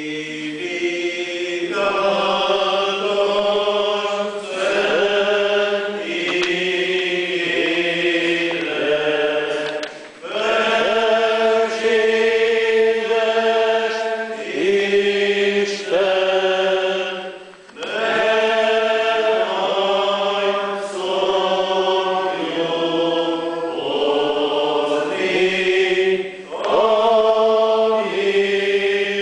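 A church congregation singing a slow hymn together in long held notes, with brief breaths between the lines.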